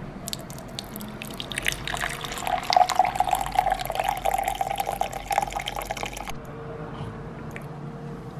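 A dark drink poured in a thin stream into a glass tumbler, splashing and ringing as the glass fills, for about six seconds before it stops suddenly. A faint steady hum follows.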